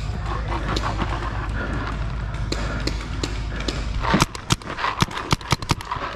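Paintball markers firing a quick string of sharp pops, starting about four seconds in, over a steady low rumble on the microphone.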